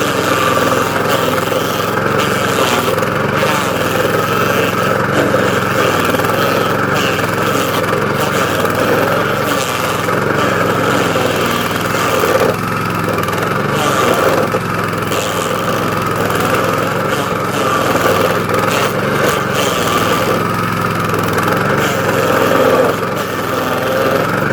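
DR stump grinder's gasoline engine running steadily, with scattered short crackles over the engine note.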